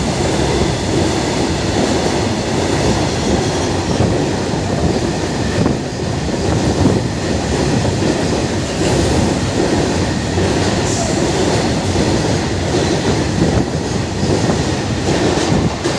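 Freight train of BOBYN open hopper wagons rolling past at speed: steady rumble of steel wheels on rail with clickety-clack from the rail joints.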